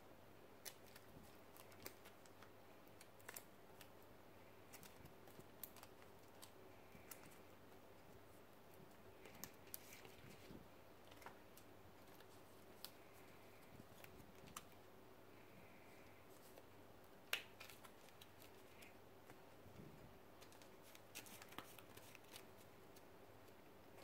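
Faint, scattered clicks and taps of sleeved trading cards being picked up, shuffled in the hand and set down on a wooden table, with one sharper tap about two-thirds of the way through.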